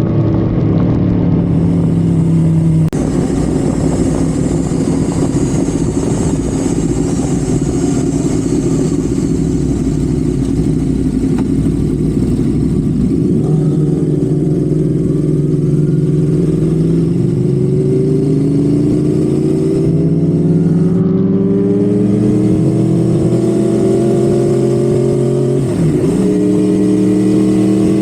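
Honda Civic FD's engine pulling at speed on the highway, its revs held steady for a while, then rising in pitch for several seconds, with a brief dip in revs near the end.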